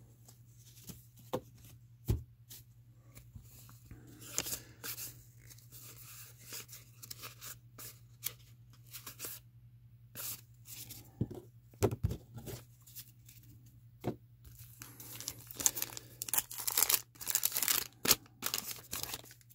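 Cardboard baseball cards handled and fanned by hand, giving scattered clicks and snaps over a faint low hum. From about fifteen seconds in, a 1987 Fleer wax pack's waxed-paper wrapper is torn open in a close run of crinkling, tearing noises.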